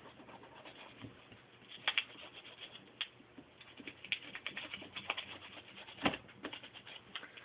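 A burnishing tool rubbing and scraping tinned silver tape down onto a glass edge. The strokes are faint and irregular, with a few sharper ticks as the tool catches the edge or corners.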